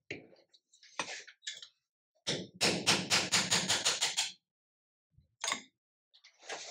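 Hammer rapping on a screwdriver held against a Bosch alternator's housing during disassembly: a quick run of about a dozen sharp metallic taps lasting about two seconds in the middle, then a couple of single knocks near the end.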